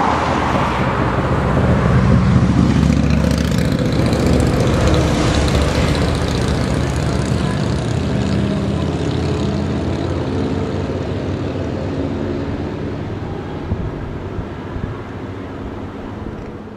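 Long Union Pacific double-stack intermodal freight train running past, a steady rumble with a low engine drone, loudest a couple of seconds in and easing slightly after.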